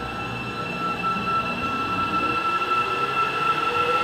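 Busan Metro Line 1 subway train with an IGBT-converted traction drive pulling away from the platform. Its motor whine rises steadily in pitch and grows louder as the train accelerates, over a steady high tone.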